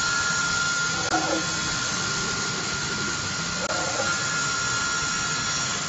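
CNC router with automatic tool changer running: a steady high whine from the spindle over a constant hiss.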